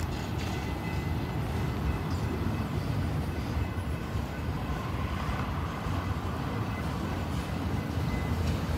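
Autorack freight cars rolling slowly over the rails: a steady low rumble of steel wheels and cars.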